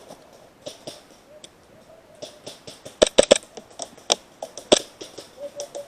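Airsoft pistols firing: sharp pops, sparse at first, then a quick run of three about three seconds in, followed by single shots.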